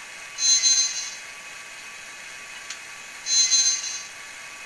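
Wheel squeal sound effect from a Digitrax SDH164D sound decoder in an HO-scale Atlas SD35 model locomotive, played twice: two high, shrill squeals, each under a second, about three seconds apart.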